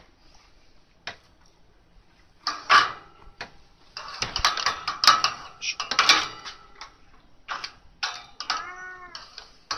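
A cat meowing once near the end, one call that rises and then falls in pitch. It comes after a few seconds of rattling and rustling noises.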